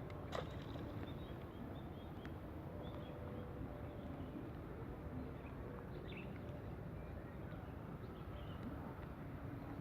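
Outdoor ambience: a steady low noise with scattered faint, short bird chirps and a single sharp click about a third of a second in.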